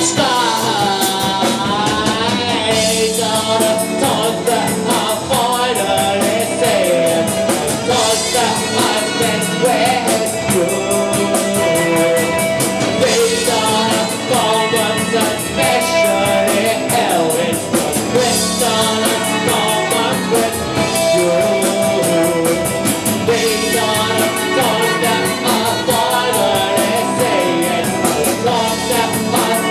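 Live rock band playing, with a male lead singer over electric guitar, saxophone and drums in a steady loud groove.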